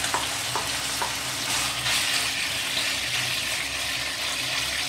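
Shredded marinated chicken sizzling steadily in hot oil in a nonstick wok, seared on medium-high heat. A spatula pushes the pieces flat, giving a few light clicks in the first second.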